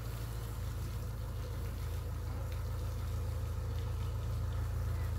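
Steady low hum of an engine or motor running at an even idle, with no change in pitch or level.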